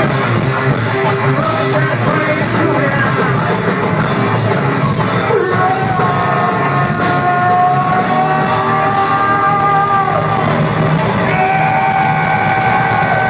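Heavy rock band playing live and loud through the concert PA, with guitars and singing; from about halfway, long held notes ring out over the band.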